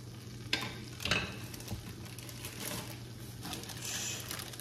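Chopped garlic sizzling in butter and oil in a frying pan, a steady fine crackle with a few sharper pops about half a second and a second in.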